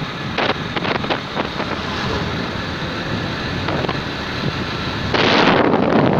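Wind buffeting a microphone on a moving motorbike, a rough rushing noise broken by frequent thumps, with a louder gust about five seconds in.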